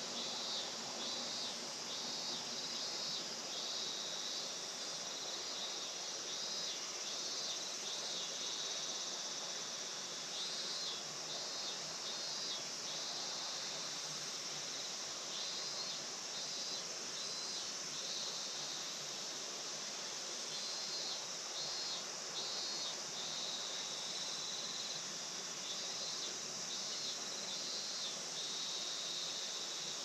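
Insect chorus in a rice field on a late-summer evening: a steady high-pitched trill, with bursts of rapid pulsed chirping that come and go every few seconds.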